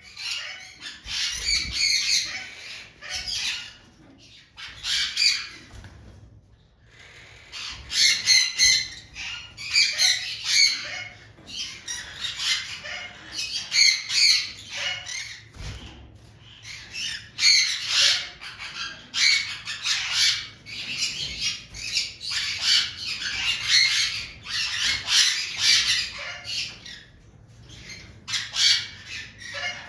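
Birds squawking: harsh, grating calls repeated again and again with short pauses between them, with a quieter lull a few seconds in.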